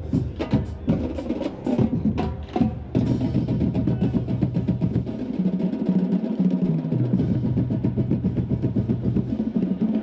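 Marching band drumline playing: separate accented drum hits for about three seconds, then a sustained drum roll with low held tones underneath that step in pitch.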